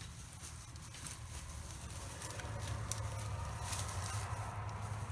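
Packing paper and plastic bag rustling and crinkling in irregular bursts as a fursuit head is unwrapped, over a steady low hum.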